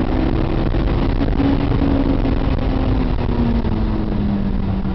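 Honda S2000's four-cylinder engine pulling hard under way, heard from inside the cabin over a heavy low rumble of road and wind noise. The engine note holds, then drops gradually in pitch over the second half.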